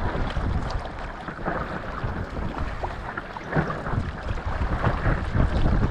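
Wind buffeting the microphone over open water while an inflatable stand-up paddleboard is paddled, with a few paddle strokes in the water. The wind gets stronger near the end.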